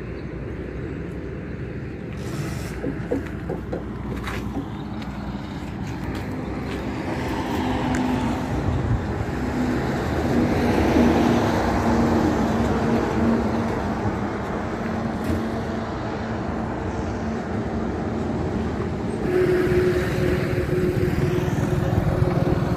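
Road traffic passing on a highway: a steady engine and tyre noise that swells as a vehicle goes by in the middle, and rises again near the end as another approaches.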